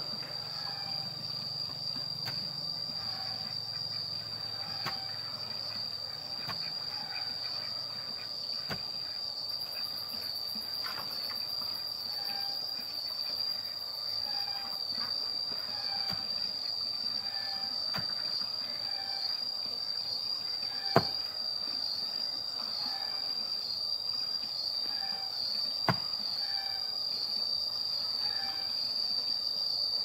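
Steady, high-pitched drone of insects, slightly wavering. Short calls repeat every second or two beneath it, and two sharp knocks come about two-thirds of the way in and again near the end.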